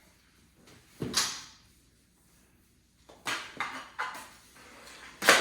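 Sharp knocks and clacks of knee hockey play, mini hockey sticks striking the ball and the ball hitting the boards: one knock about a second in, three in quick succession around three to four seconds, and the loudest near the end.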